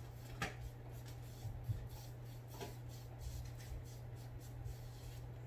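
Faint soft strokes of a foam sponge brush dabbing and rubbing gray acrylic paint onto a canvas, over a steady low hum.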